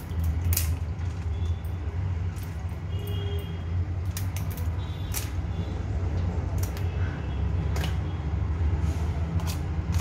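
Scissors snipping through live crabs' legs and shell, with scattered sharp clicks and clacks against a steel bowl of water, over a steady low hum.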